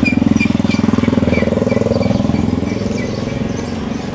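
A motor vehicle engine running with a fast, even pulse, easing off after about three seconds, with a run of short high chirps repeating about three times a second over it.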